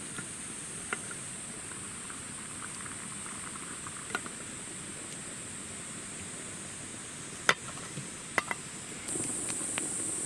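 Campfire crackling: scattered small pops and a few sharper cracks, the loudest about seven and a half seconds in, over a steady high hiss.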